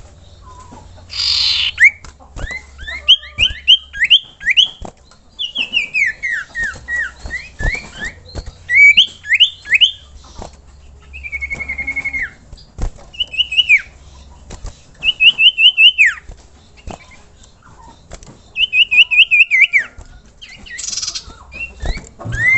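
Common iora (cipoh) calling: phrase after phrase of quick whistled notes, many sliding downward, with one held wavering note midway. A short rasping burst comes about a second in and another near the end.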